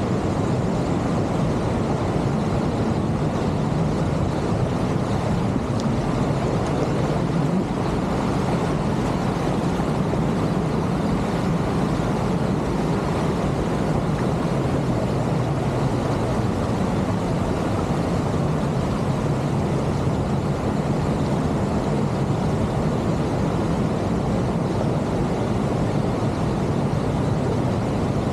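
Niagara Falls: a vast volume of water pouring over the brink close by, a loud, steady, deep rush with no break.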